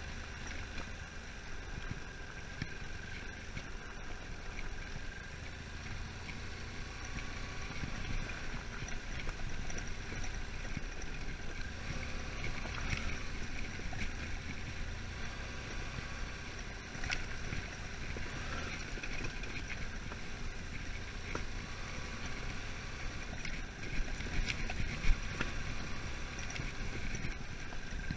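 BMW F800 GS motorcycle's parallel-twin engine running steadily as the bike rides a rough dirt trail, with scattered rattles and knocks from the bumps. There is one sharp, loud knock near the end.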